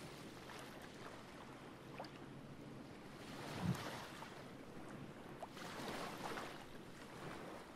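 Faint wash of sea waves on rocks, swelling twice, about three and a half and six seconds in.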